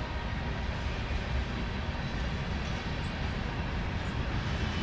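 Norfolk Southern freight train rolling past at track level: a steady rumble and rail noise from the moving cars.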